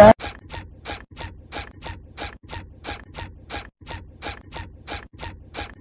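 A hand squeezing and working crumbly corn masa dough in a bowl, making short rasping strokes that repeat evenly about three times a second.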